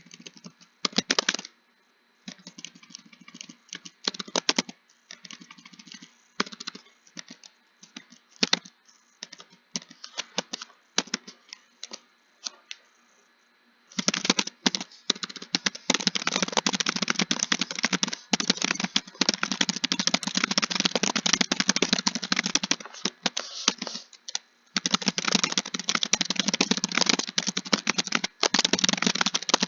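Typing on a computer keyboard. Scattered keystrokes for the first half, then fast, continuous typing from about halfway through, with a brief pause a few seconds before the end.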